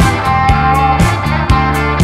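Background music with sustained chords over a steady beat of about two drum hits a second.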